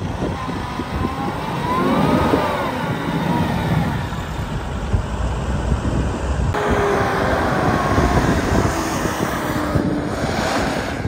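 Mitsubishi Pajero Sport's engine running and revving up and down as the SUV drives back down a soft sand dune.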